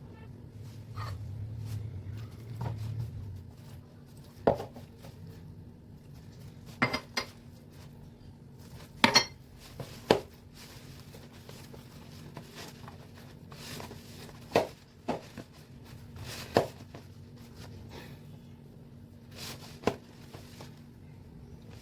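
Kitchen utensils and dishes clinking and knocking against each other during food preparation, in about ten scattered sharp knocks with a cluster in the middle, over a faint steady hum.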